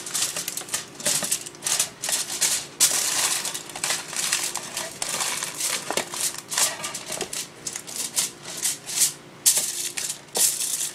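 Aluminium foil crinkling as it is pressed and folded into a square metal baking pan, in rapid, irregular crackles.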